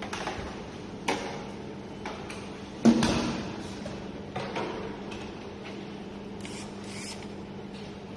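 Parts being handled during disassembly: a few separate knocks and clicks, the loudest about three seconds in, over a faint steady hum.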